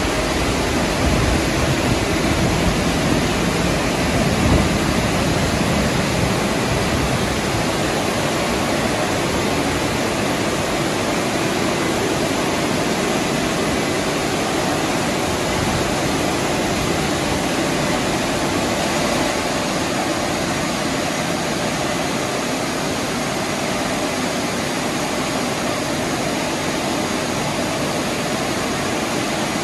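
WashTec rollover car wash gantry running over a car, a steady loud rushing noise of its spray and blower machinery.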